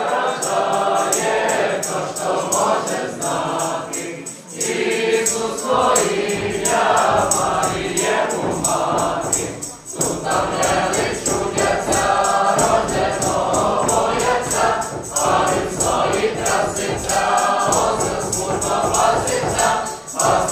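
A small group of young male and female voices singing a Ukrainian Christmas carol (koliadka) together, with bells jingling in a steady rhythm along with the song.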